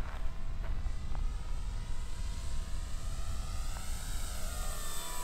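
Electric motor and propeller of a 1200 mm GeeBee RC model plane whining in flight. The pitch rises about three to four seconds in as it comes closer, then drops near the end. Wind rumbles on the microphone underneath.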